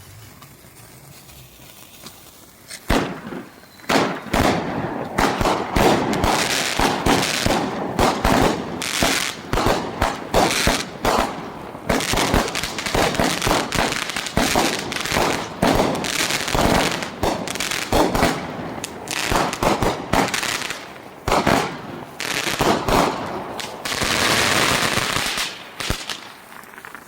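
Strings of firecrackers going off in a long run of rapid, irregular bangs, starting about three seconds in and thickening into a dense rattle near the end. The coiled strings are stacked so that each one lights the next.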